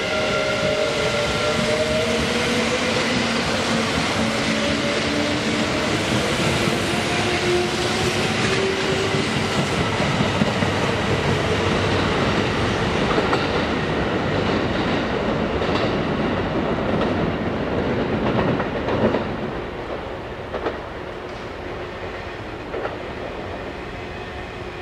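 Kintetsu 22600-series and 12200-series electric limited-express train accelerating away from a station. Over the first several seconds its motors whine, rising in pitch, over the noise of the wheels clattering on the rails. About three-quarters of the way through, the sound drops off as the train draws away.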